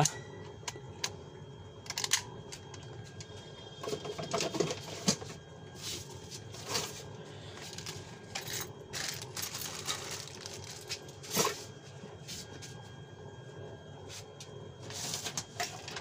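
Hands handling a metal electric door lock and other small parts on a tabletop: scattered light clicks, knocks and rustling, with the loudest knock about two-thirds of the way through.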